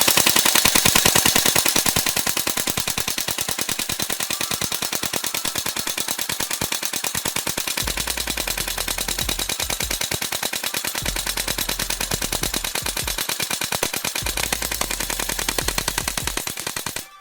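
Ares Thompson M1928 airsoft electric gun with electronic blowback firing full-auto in one long unbroken burst, a rapid, even rattle of shots, to empty the magazine. The firing stops abruptly near the end.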